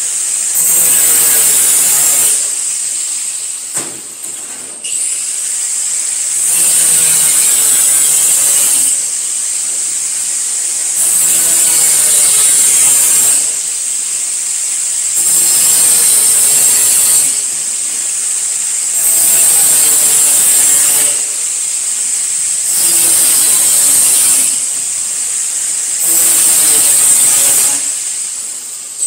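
Angle grinder running without a break, its disc grinding the edges of galvanized sheet-metal pieces in repeated passes: louder each time the disc bites into the metal, about every two seconds, easing off between passes.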